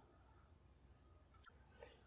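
Near silence: room tone, with a couple of faint, light clicks near the end.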